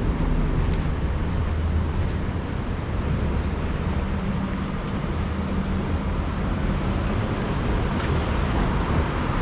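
Street traffic noise, with the low, steady hum of a vehicle engine running close by.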